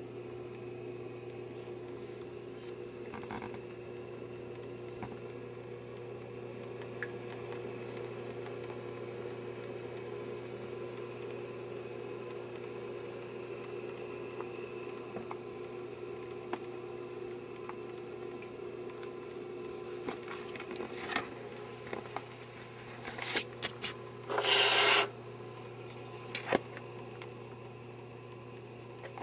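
Steady hum of a running aquarium filter. Near the end come a few sharp clicks and one short burst of rustling.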